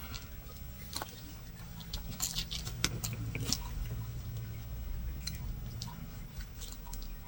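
Latch hook tool working yarn into rug canvas: small scattered clicks and ticks of the hook and its latch, with soft rustling of yarn, busiest a couple of seconds in.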